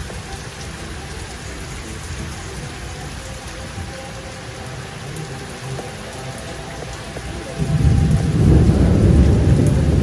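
Heavy rain falling steadily on water and paving. About three-quarters of the way through, a loud low rumble starts suddenly and keeps going.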